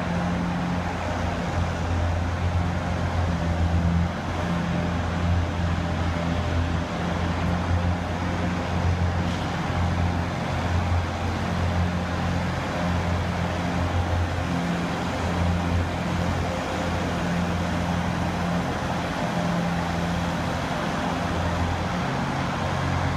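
Ice resurfacing machine running as it drives across the rink: a steady low engine hum with an even hiss over it.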